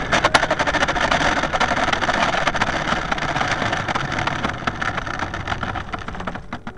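Model aircraft rolling fast along a tarmac runway: a dense rattle of bumps and clicks over a rushing noise, growing quieter near the end as it slows.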